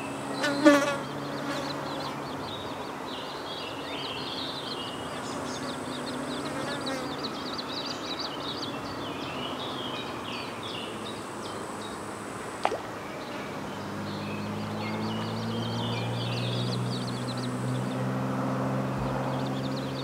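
Many short, high bird chirps throughout, with a low insect buzz droning close by that grows stronger in the second half. A louder short call sounds about a second in, and a single sharp click near the middle.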